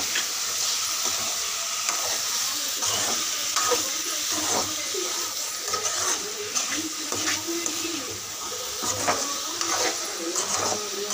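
Metal spatula stirring chicken in a steel kadai, with irregular scrapes and knocks against the pan over a steady sizzle of the meat frying.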